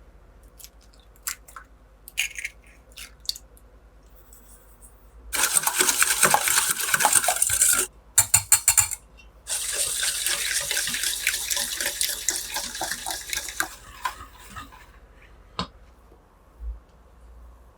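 Kitchen tap running into a sink, turned on abruptly, briefly stopped and sputtering, then running again for several seconds before tailing off. A few light clicks and clinks before and after.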